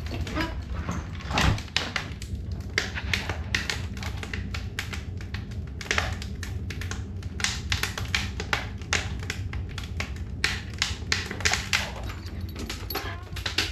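Wood fire crackling and popping in a wood stove: irregular sharp clicks, several a second, over a steady low hum.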